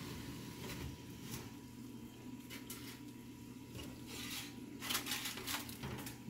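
Metal oven rack and foil-covered loaf pans being handled: scattered short scrapes and crinkles, busiest about four to five and a half seconds in, over a steady low hum.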